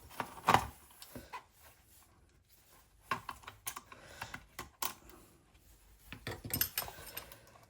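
Scattered light clicks and taps of small hand tools and screws against a plastic radio casing as it is taken apart, loudest about half a second in.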